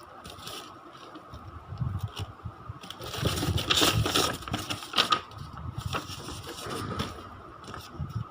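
Packaging being handled and opened: irregular crinkling, rustling and scraping, busiest around the middle.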